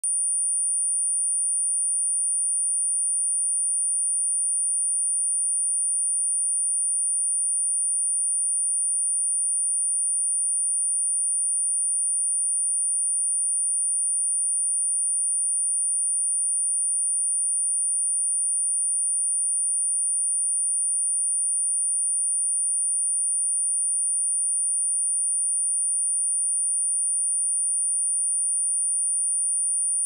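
A pure electronically generated sine-wave test tone at 9364 Hz: a single high-pitched, unwavering whistle held at constant pitch and level.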